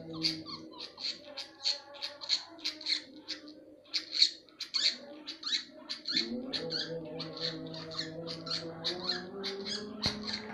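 Male lovebird chirping: a long, steady run of short, sharp, high calls, about three a second, over low steady tones. The uploader presents this calling as the effect of a testosterone injection.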